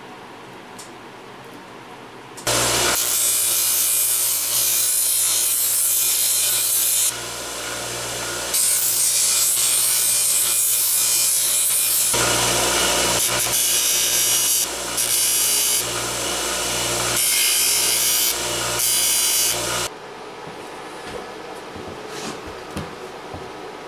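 A power tool running under load on metal. It starts a couple of seconds in, eases briefly about seven seconds in, runs on with short breaks, and cuts off about four seconds before the end.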